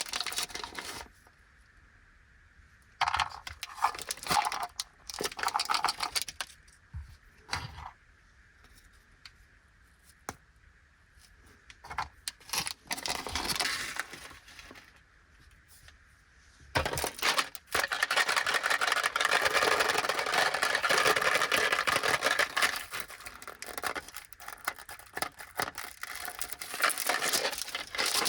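Snack packaging being handled: plastic wrappers crinkling and small pieces clattering in short bursts with pauses between them. About two-thirds through, this gives way to steady, dense crinkling of a plastic candy wrapper as the next package is opened.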